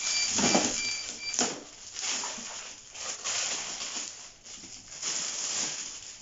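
Plastic packaging crinkling and rustling in short bursts as a clear acrylic fridge storage container is unwrapped from its bag by hand, with a sharp click about a second in.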